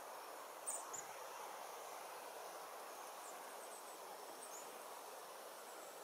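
Steady faint outdoor background hiss with a few brief, very high-pitched bird call notes: a pair about a second in, the loudest sound here, and a couple of fainter ones later.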